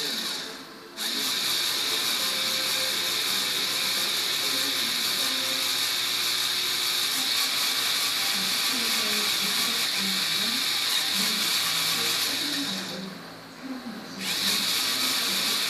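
Electric motors and plastic gear train of a motorised LEGO Technic car model whirring as its wheels spin freely on a stand: a steady, high gear whir. It stops briefly about a second in and again near the end, then starts up once more.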